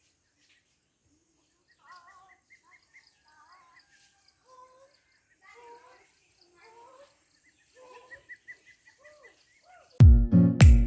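Birds chirping and calling faintly over a steady high insect drone, then loud acoustic guitar music cuts in suddenly about a second before the end.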